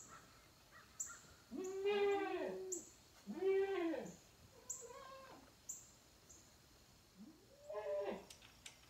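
Goats bleating: several drawn-out calls, each rising then falling in pitch, with two overlapping about two seconds in.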